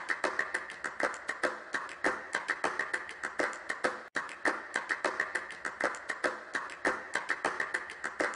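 Rapid, even ticking clicks, about six a second.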